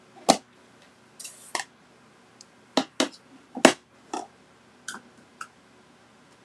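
Plastic ink pad cases being handled: a run of sharp clicks and taps as an ink pad is set down beside another and its hinged lid is snapped open, with a brief scratchy rustle about a second in.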